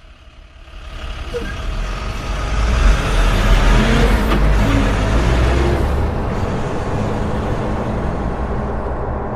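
Motor vehicle on the move: a low rumble of engine and road noise that builds over the first three seconds, then holds steady.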